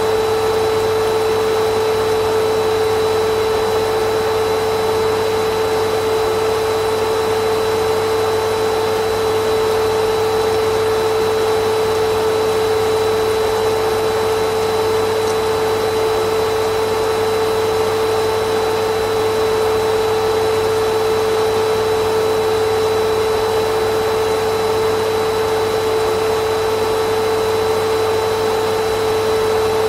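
Vacuum cleaner motor running at a steady speed: a constant whine with a strong steady hum over a rush of air, without change.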